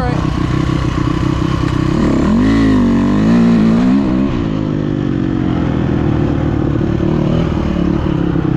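Small off-road vehicle engine running under way, its pitch rising and falling with the throttle about two seconds in, then settling back to a steady run.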